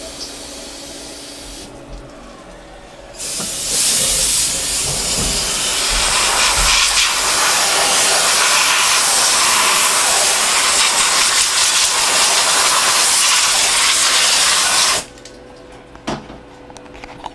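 Compressed-air blow nozzle blasting chips and coolant off a row of freshly drilled and tapped brass parts in a CNC mill fixture. A loud steady hiss starts about three seconds in and cuts off suddenly near the end, with a quieter steady hum before and after it.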